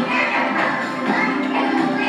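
Children's song about dragon boats playing from the projected video, a voice singing a line over the backing music.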